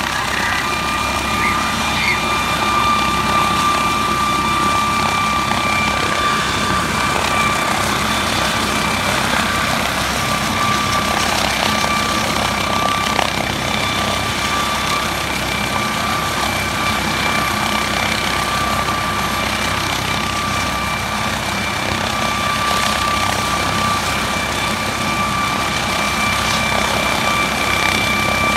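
MD 902 Explorer air ambulance helicopter running on the ground with its rotors turning before take-off: a steady high turbine whine over constant rotor noise.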